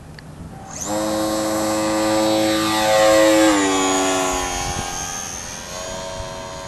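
A radio-controlled Cub model airplane's motor and propeller throttle up suddenly for a takeoff from grass, giving a loud, steady buzz with a high whine. Its pitch drops about three and a half seconds in as the plane passes overhead, then it fades as the plane climbs away.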